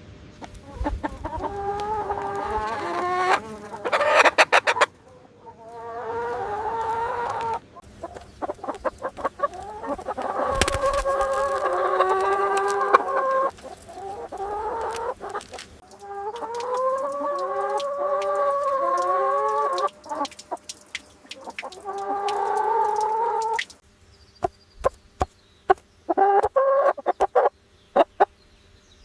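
Chickens calling in a farmyard: a run of drawn-out, wavering calls of a second or more each, with crowing, and sharp taps and clicks between them. The calls stop about five seconds before the end, leaving only scattered clicks.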